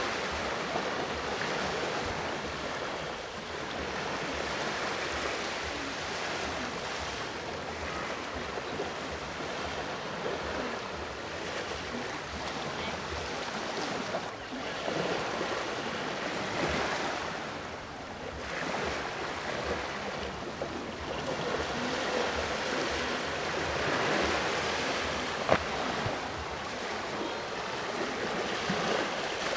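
Sea waves washing onto the shore, the surf swelling and fading every few seconds. A single sharp click about three quarters of the way through.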